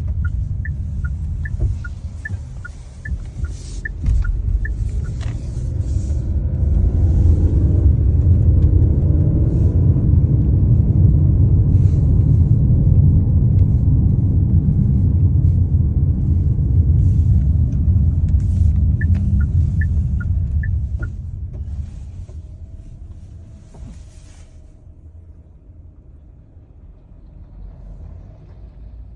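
Chery Tiggo 8 Pro Max driving, with a low road-and-running rumble that builds, holds and then fades as the car slows near the end. Scattered sharp knocks come through it; the owner traces a knock to the front left wheel, as if something wound on the wheel were striking. A quick two-tone ticking sounds for a few seconds at the start and again about two-thirds of the way in.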